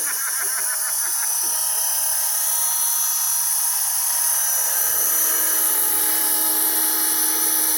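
Radio-controlled scale Jet Ranger helicopter running: a steady high-pitched whine from its motor and rotors, getting a little louder about halfway through.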